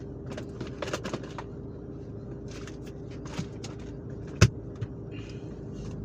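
Groceries being handled in plastic bags and packaging: rustling and small clicks as items are taken out and set down, with one sharp knock about four and a half seconds in, over a steady low hum.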